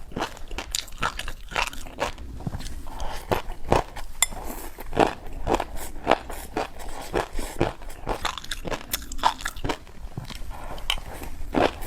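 A person biting and chewing a crisp, crunchy snack: a run of sharp, irregular crunches, a few every second.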